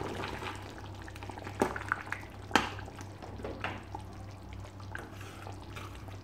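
Thick chicken gravy bubbling as it boils, with scattered sharp pops and clicks over a low steady hum.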